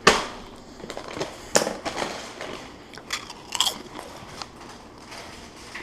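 A handful of sharp clicks and crunching knocks, the loudest right at the start and others about a second and a half, three and three and a half seconds in.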